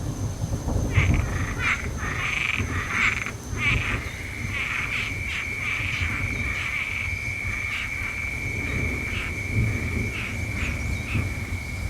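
Frogs croaking in a chorus of short repeated calls, with a steady high trill joining about four seconds in, over a constant low rumble.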